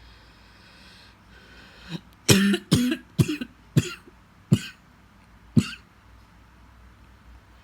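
A person coughing: a fit of about six sharp coughs in a row, starting about two seconds in and coming roughly half a second to a second apart. It is a persistent cough, now on its fifth day.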